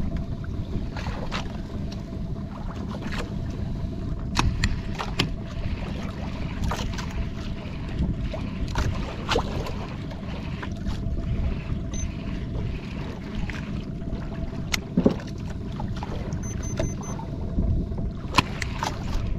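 Small jukung fishing boat at sea: a steady low rumble with a faint constant hum, wind and water noise, and scattered knocks and clicks on board.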